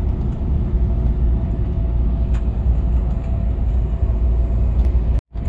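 Steady drive noise of a Scania's diesel engine and tyres on the road, heard from inside the moving vehicle: a low rumble with a couple of faint steady tones. It cuts out completely for a moment near the end.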